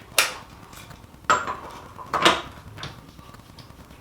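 Metal hand tools clanking: three sharp clanks about a second apart, then a lighter one.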